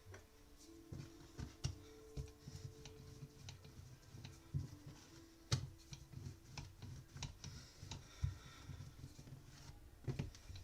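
Faint, irregular light clicks and knocks of dough and kitchen utensils being handled on a worktop, with a couple of sharper knocks about five and a half seconds in.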